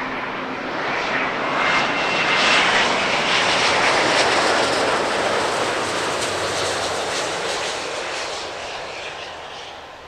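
Airbus A350-900's twin Rolls-Royce Trent XWB turbofans as the airliner passes low with gear down: a wide jet rush that swells to its loudest a few seconds in, with a faint whine early on, then slowly fades.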